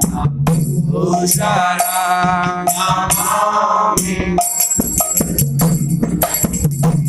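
Kirtan music: a sung devotional line over mridanga drum strokes, hand cymbals and a harmonium drone. Near the middle the voice stops and the drum and ringing cymbals carry on alone.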